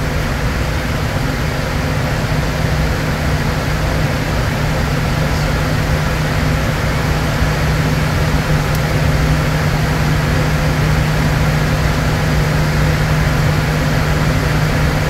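Flight-deck noise of a Bombardier Challenger 350 business jet in flight: a steady rush of air with a constant low hum underneath.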